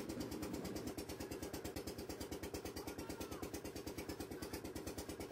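Engine of a wooden motor boat running steadily, a rapid, even chugging beat heard fairly faintly.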